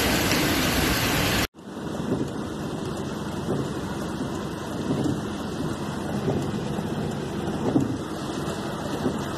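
A loud rush of floodwater and spray as a van drives through a flooded street, cut off suddenly about a second and a half in. It is followed by a steady patter of rain on a car, heard from inside the car.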